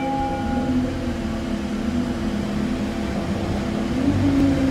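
A bell chime dying away in the first second, then the steady hum of a motor vehicle running, with a low engine tone that wavers in pitch.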